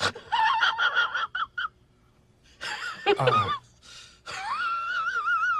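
High-pitched squeaky vocal sound effect: a quick choppy run of short laugh-like notes, then a falling squeal, then a long wavering whine that starts a little past the middle.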